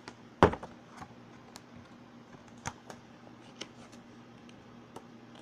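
Paper and packaging being handled on a tabletop: one sharp knock about half a second in, then scattered light ticks and rustles over a faint steady hum.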